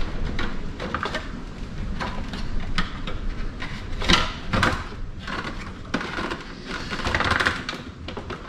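Irregular light clicks, taps and scrapes of a gauge cluster's circuit board and plastic housing being handled and pressed into place.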